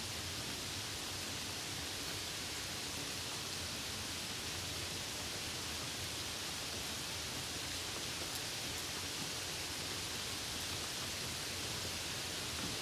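Steady rain and wet-road noise while driving: an even hiss with a low rumble underneath that stays level throughout.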